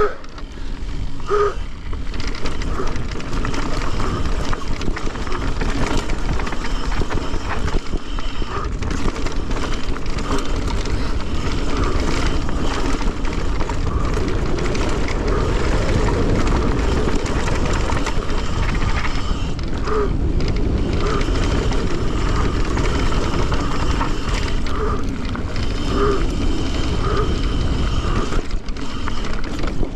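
Santa Cruz Bullit electric mountain bike riding down a rough dirt trail: steady wind and tyre noise with the bike rattling, and short squeaks here and there, several of them in the second half.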